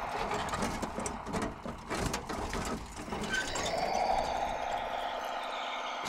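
Radio-controlled conversion of a Bruder CAT D11 toy bulldozer driving, with a steady motor whine that swells about four seconds in, and clicks and knocks from its tracks and plastic parts.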